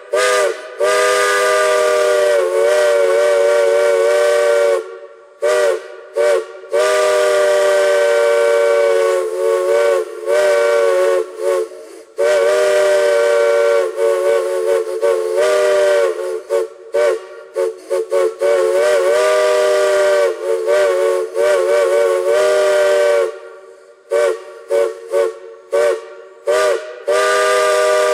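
A chime steam whistle sounding a chord of several notes, blown in long blasts broken up by runs of quick short toots. Some toots bend and waver in pitch as the valve is worked, with steam hiss around the tones.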